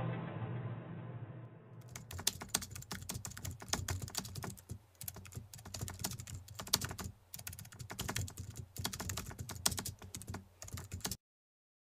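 Typing sound effect: a rapid, uneven run of key clicks that goes with text being typed out on screen, cutting off suddenly near the end. Fading music tails off in the first two seconds.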